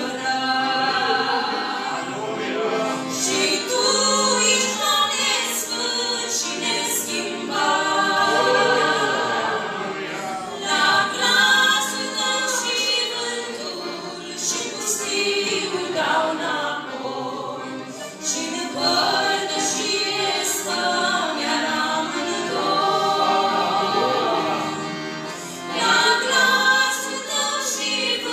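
Two women singing a Romanian Christian song together into handheld microphones, in continuous phrases with long held notes.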